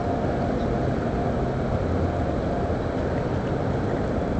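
Container ship Westwood Columbia passing under power, its engines giving a steady low drone with a few faint held tones in it.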